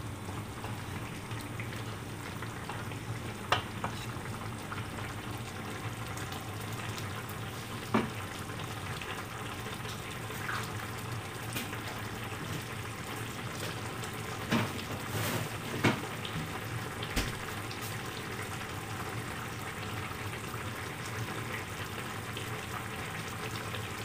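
Chicken, pumpkin and tofu simmering in a coconut-milk sauce in a frying pan, a steady sizzle, with a few short sharp knocks along the way.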